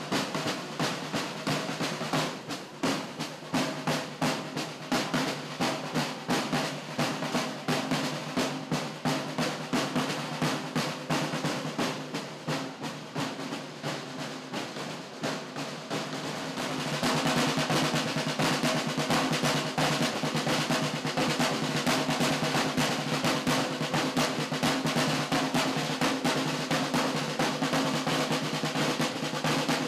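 Several rope-tensioned field drums played with wooden sticks, beating a fast rhythm of strokes and rolls. The drumming grows louder and denser a little past halfway through.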